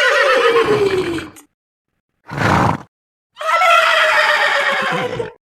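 Horse whinnying twice, each a long call sliding down in pitch, with a short breathy sound in between.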